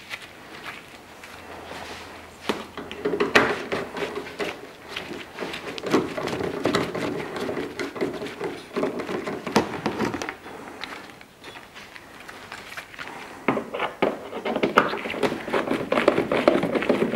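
Hand work on a car's plastic rear bumper: a busy run of clicks, knocks and rattles as its Torx screws and fittings are worked loose by hand and with a hand tool.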